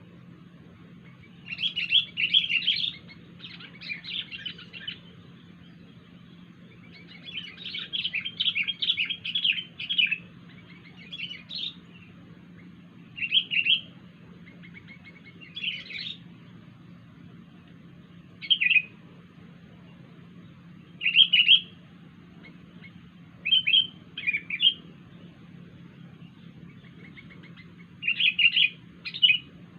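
Sooty-headed bulbul (kutilang) calling in short, rapid chirpy phrases, about ten bursts separated by pauses of one to several seconds, the longest run lasting about three seconds. A faint steady low hum runs underneath.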